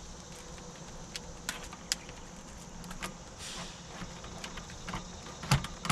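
Scattered light clicks and clinks of tools and parts being handled, with a quicker run of clicks and knocks near the end.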